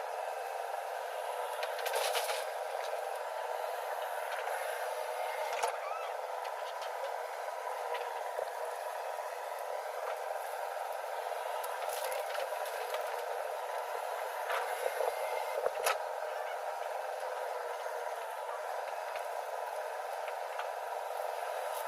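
Heavy machinery engine running steadily, with a few short knocks and clatters now and then.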